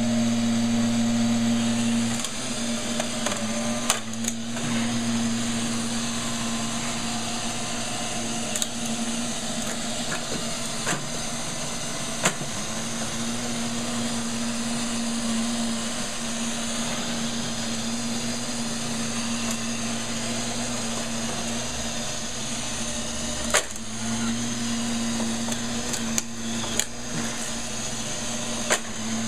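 Robot vacuum cleaners, an iRobot Roomba 560 and a Neato XV-11, running with a steady motor hum and whir, broken by a few sharp knocks.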